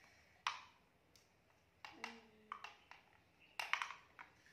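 Hard plastic toys clicking and clacking on a tile floor: a handful of separate sharp knocks, the loudest about half a second in and a cluster near the end.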